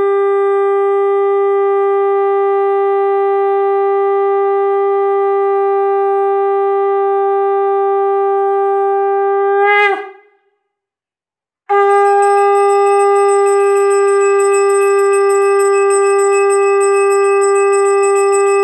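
Conch shell (shankha) blown in two long, steady blasts on the same note, as at a Hindu puja. The first blast ends with a brief wavering drop in pitch about ten seconds in. After a short silence the second begins.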